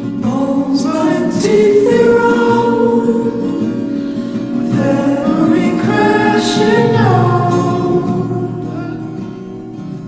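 Soundtrack music with singing: long held vocal notes that slide between pitches, over a guitar accompaniment.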